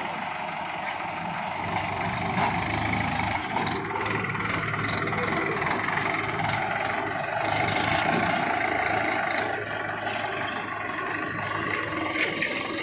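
Heavy diesel machinery engine running steadily, with a run of clattering knocks and rattles in the middle.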